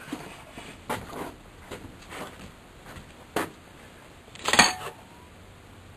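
Scattered knocks and rattles of stored parts and boxes being handled and shifted, with a louder clatter and a brief metallic ring about four and a half seconds in.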